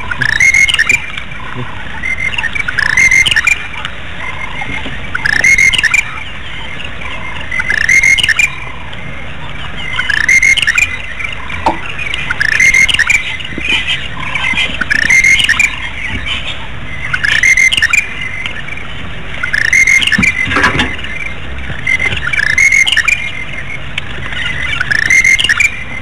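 Bird calling over and over, a short high call about every two seconds, with a single longer falling call about twenty seconds in.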